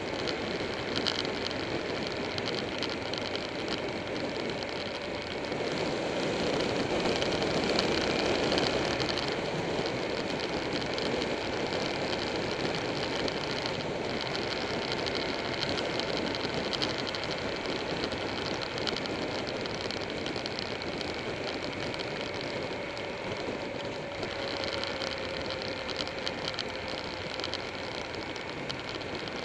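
Buell 1125R's 1125 cc V-twin running at speed on the open road, mostly heard as a steady rush of wind and road noise, with the engine note rising slightly near the end.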